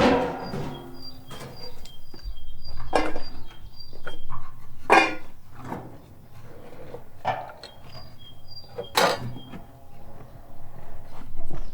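Dishes and kitchen utensils being handled, with several separate knocks and clinks a couple of seconds apart.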